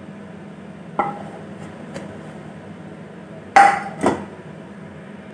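A wooden spoon and a nonstick pan knocking against a steel plate while hot butterscotch is scraped out of the pan. There is a light knock about a second in, then two louder clanks with a short metallic ring about three and a half and four seconds in.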